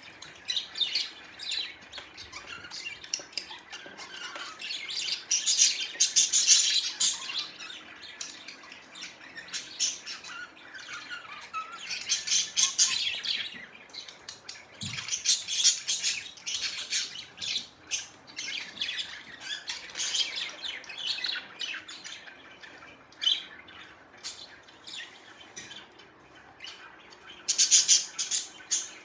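Budgerigars chattering and chirping in bouts of rapid, high-pitched calls and squawks, loudest near the end.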